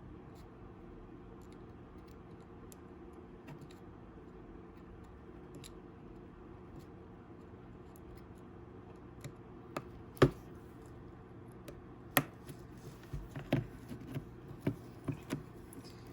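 Light clicks and taps of small tools and parts being handled on an opened iPhone 6 Plus, over a low steady hum; two sharp clicks about ten and twelve seconds in, then a quick run of smaller ones.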